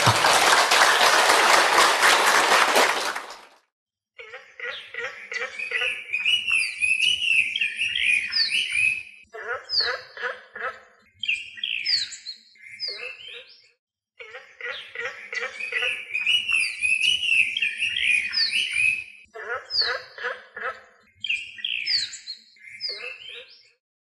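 Audience applause for about three seconds. Then a recorded track of chirping, whistling birdsong plays, its pattern repeating after about ten seconds.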